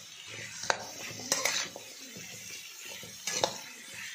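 A spatula knocks and scrapes against a kadhai as pumpkin cubes are stirred in hot mustard oil, over a steady sizzle; three sharper clacks stand out.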